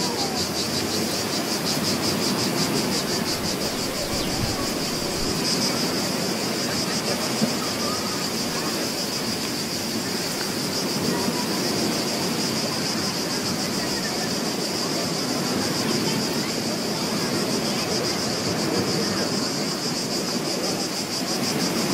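Beach ambience: waves washing steadily on the shore, with a high, fast-pulsing buzz running over it unchanged throughout.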